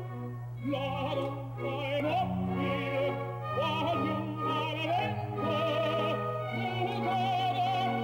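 Music with operatic singing: a sung voice with strong vibrato holding and changing notes over a steady low tone.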